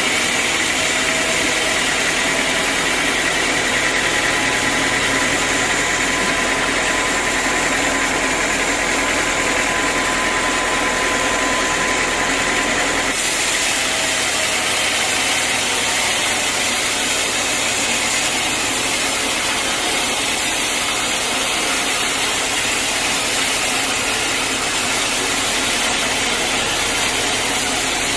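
Sawmill machinery running with a steady, loud mechanical noise; the sound shifts abruptly about thirteen seconds in.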